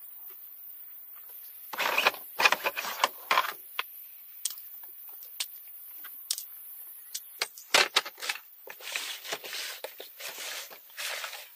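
Camping gear being handled and packed: irregular bursts of rustling and scraping, with sharp clicks and knocks, starting about two seconds in. They include a folding mat being lifted and plastic storage boxes being moved.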